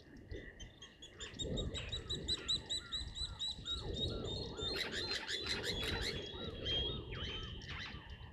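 Wildlife calling at a waterhole: a rapid run of short, evenly repeated chirps, several a second, that builds about halfway through into a denser tangle of overlapping calls and thins out near the end.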